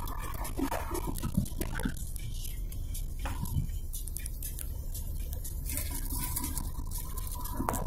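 Inside a moving car's cabin: steady low rumble of engine and tyres on a rough, patched asphalt road, with scattered small knocks and rattles from the bumps. A faint steady whine comes in about six seconds in.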